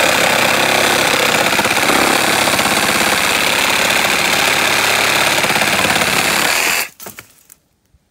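Makita DJR186Z 18V brushed cordless reciprocating saw running at full speed, its blade sawing back and forth through a timber rail with a loud, steady rattling buzz. It cuts off suddenly near the end as the cut goes through, followed by a few knocks.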